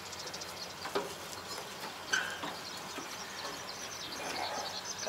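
Faint rustling and a few light knocks as straw is pulled by hand out of a Yanmar combine's cutter, the straw jam behind the engine stalling. Faint bird chirps can be heard behind it.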